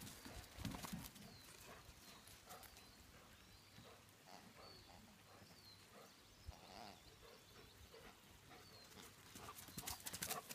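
Near silence: faint outdoor ambience, with a few soft scuffs and taps near the start and again towards the end.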